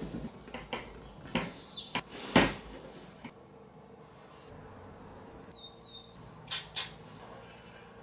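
Handling noise of small copper tubing and fittings on a workbench: a run of clicks and knocks, the loudest about two and a half seconds in, then a few faint high squeaks, and two sharp knocks close together near the end.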